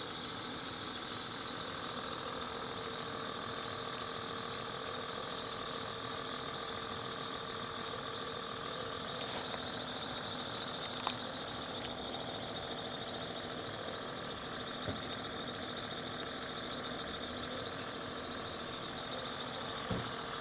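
Steady mechanical hum with several held tones, with one sharp click about halfway through.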